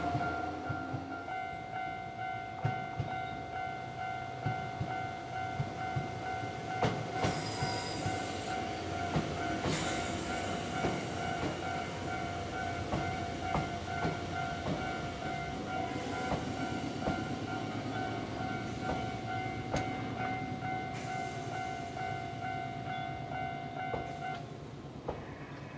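A Japanese level-crossing warning bell rings steadily while a Nankai electric train passes over the crossing, its wheels clacking over the rail joints. Near the end the bell stops as the crossing clears.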